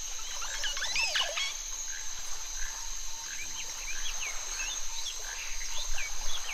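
Wetland ambience: a steady high-pitched insect drone, with short calls repeating about every two-thirds of a second and scattered chirps from frogs or birds. The loudest is a downward-sweeping call about a second in.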